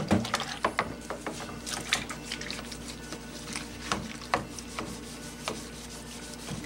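A red plastic bowl set down into a sink of soapy dishwater and scrubbed with a sponge: sloshing water and irregular scrubbing and knocking sounds, loudest at the very start as the bowl goes in.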